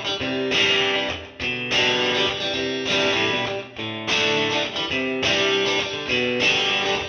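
Intro music: guitar strumming chords that change every half second to a second.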